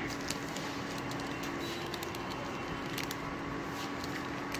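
Induction cooktop running with a steady hum and fan hiss, the macaroni in the pan frying with a few faint crackles.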